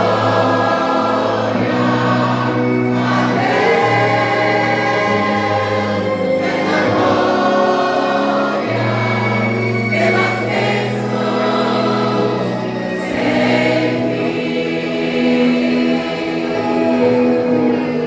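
Church vocal group singing a slow gospel hymn in harmony, with long held notes over a steady low accompaniment.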